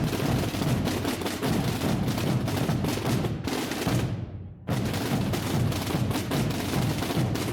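Massed Holy Week drums, snare-type tambores and deep bombos, beaten together in a dense, continuous rumble of overlapping strokes. The sound drops away briefly about four seconds in and comes back abruptly.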